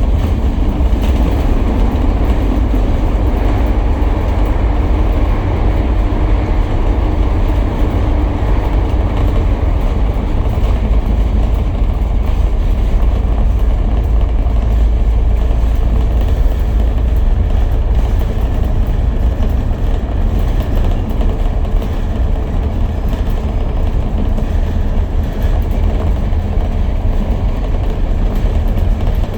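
City double-decker bus driving at speed, a loud, steady low rumble of engine and road noise.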